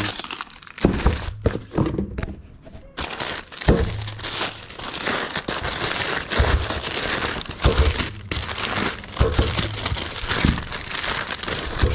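Plastic packaging crinkling and rustling as suspension kit parts are unpacked and handled, with scattered knocks and clunks of the parts.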